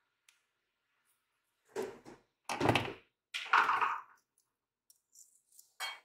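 Hands handling small plastic and metal parts close to the microphone on a desk: three loud scraping, rubbing noises about two seconds in, then a few light clicks and a short sharp tap near the end.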